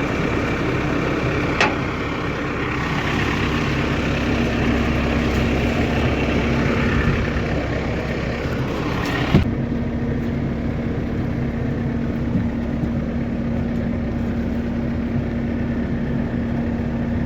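Tractor engine idling steadily, with a sudden change in the sound about nine seconds in.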